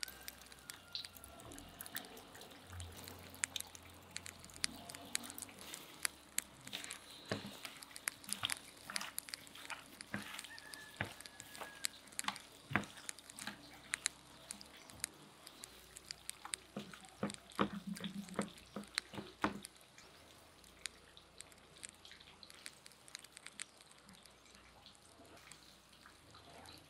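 Wet squelching and sticky clicks of gloved hands kneading turkey pieces in an oily marinade in a metal tray: many short, irregular squishes that die away about three-quarters of the way through.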